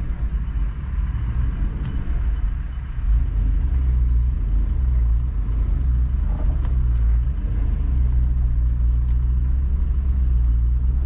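Land Rover LR3 engine and drivetrain rumbling steadily as the truck climbs a rocky trail, a little louder from about three seconds in. A few faint clicks are heard over it.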